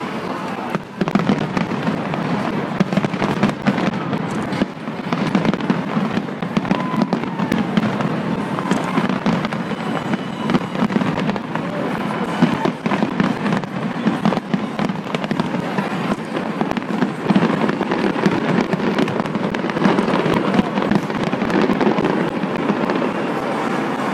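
Display fireworks barrage: many aerial shells bursting at once in rapid, overlapping bangs and crackle, with no pause.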